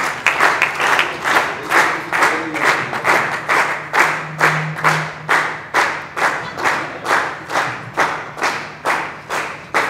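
Audience clapping together in a steady rhythm, about three claps a second, with a faint low hum underneath.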